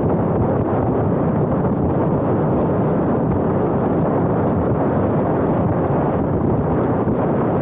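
Steady rush of wind on the camera microphone of a moving motorcycle, mixed with the motorcycle's engine running at cruising speed.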